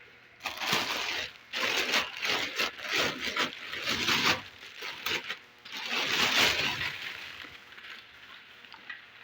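Crinkling, crackling plastic packaging being handled, in uneven bursts with short pauses, the longest burst coming about six seconds in before it dies down.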